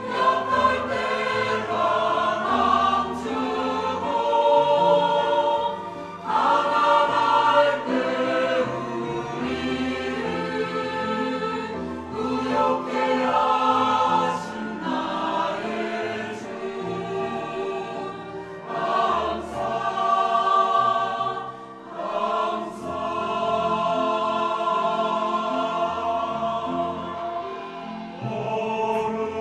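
Church choir singing a sacred anthem in sustained, full harmony.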